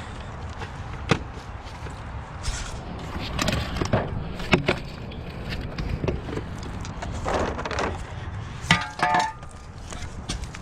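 Scattered knocks, bumps and scraping as someone moves about and handles tools and materials in a crawl space, with a few sharp knocks standing out.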